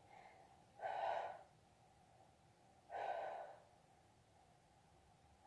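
A woman's faint, slow breaths: two breaths about two seconds apart, each lasting about half a second.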